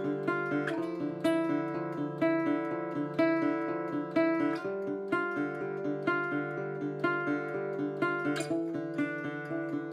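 Acoustic guitar music played on a Levin guitar from about 1930: a steady pattern of picked notes, several a second, over ringing low notes.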